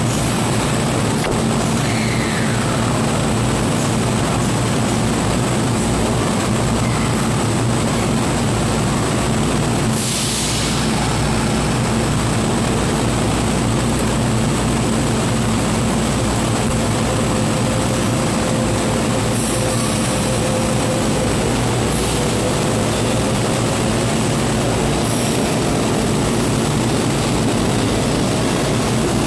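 Kintetsu 50000 series Shimakaze electric train standing at the platform, its onboard equipment and air-conditioning running with a loud, steady drone and hum and a thin high whine. A brief hiss about ten seconds in.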